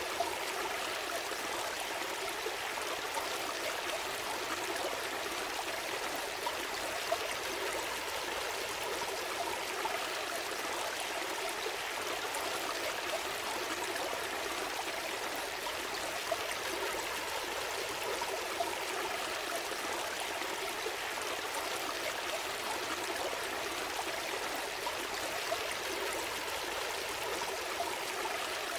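Small stream flowing steadily over stones, a continuous babble and trickle of water with little splashes here and there.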